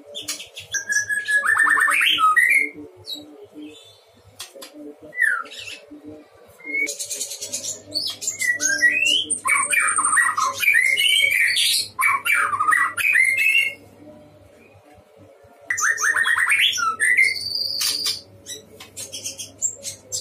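White-rumped shama singing loud, varied phrases of whistles, pitch glides and rapid buzzy trills, in four bursts with short pauses between; the longest runs through the middle.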